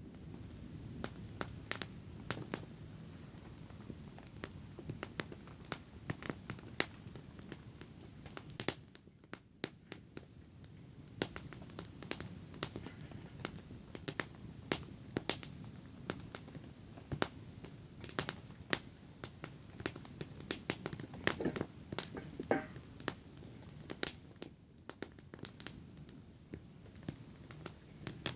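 Small wood campfire crackling: irregular sharp pops and snaps, several a second, over a steady low background noise.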